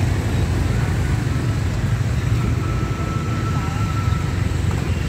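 Motorbike and road traffic passing, heard as a steady low rumble.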